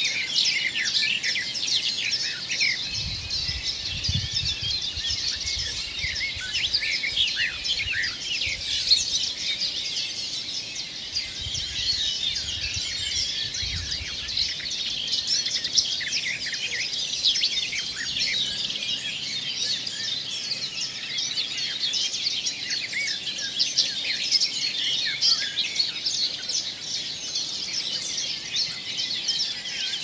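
Dawn chorus of many woodland birds singing and calling at once, a dense, unbroken mix of chirps and trills. A low rumble comes up twice, a few seconds in and again around the middle.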